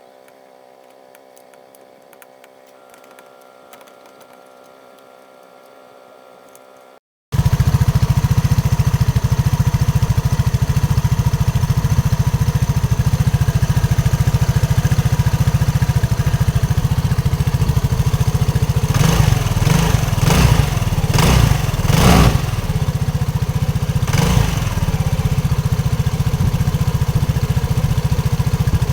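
A faint steady hum, then about seven seconds in an abrupt cut to a Rusi RFi 175 scooter's engine running loudly and steadily, with a few louder surges about two-thirds of the way through.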